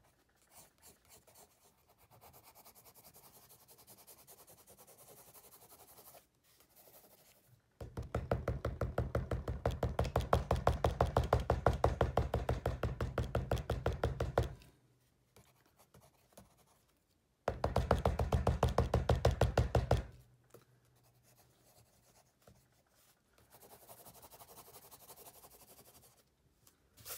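Hard, fast scribbling strokes of a drawing tool on paper. Lighter scratching breaks into two loud runs of rapid back-and-forth hatching, a long one about a third of the way in and a shorter one a few seconds later, then eases back to light scratching near the end.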